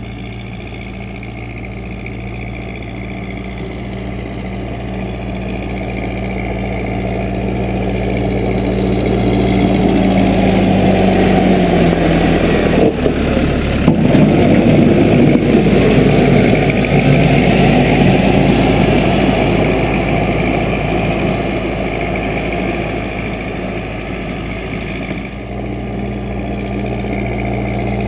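Case 580B backhoe engine running, growing louder over the first ten seconds. About twelve seconds in its note drops in pitch and turns rough for several seconds, then it settles back to a steady, even note near the end.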